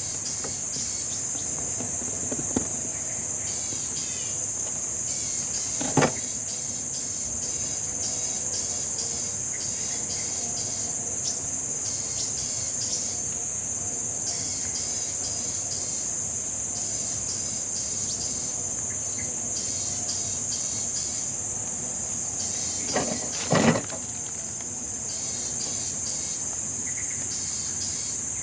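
Steady insect chorus: a constant high-pitched drone with rapid chirping trills beneath it. A few sharp knocks cut across it, one about six seconds in and a close pair about five-sixths of the way through.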